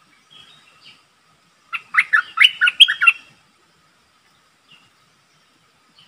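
Caged stripe-throated bulbul singing one quick, loud phrase of about six notes, about two seconds in. Fainter short calls come before and after it.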